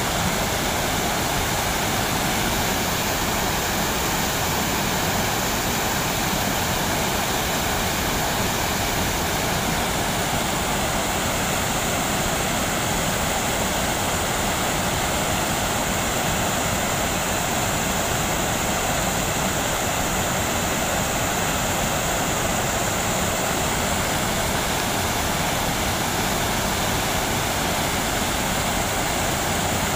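River water pouring over a low concrete weir: a steady, unbroken rush of noise.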